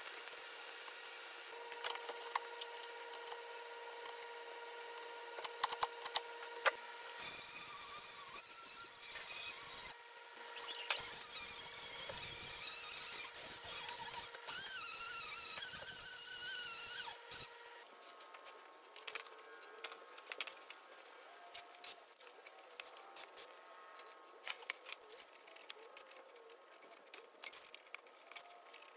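Cordless drill spinning an abrasive disc against a welded steel tube frame: several seconds of loud, grainy grinding through the middle. Quieter clicks and tool handling come before and after it.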